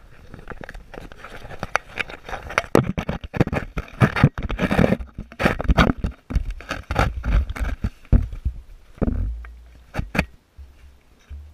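Handling noise from a hand-held camera: scraping, knocking and rubbing against the microphone, over a low rumble. It thins out and stops near the end.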